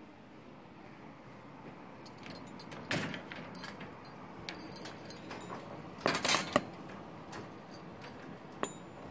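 Metal wire cage rattling and clinking in short bursts as it is handled and opened, beginning about two seconds in and loudest around six seconds in.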